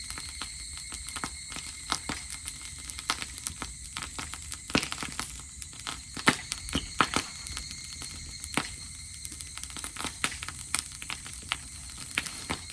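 Campfire of dry grass crackling, with irregular sharp pops and snaps several times a second.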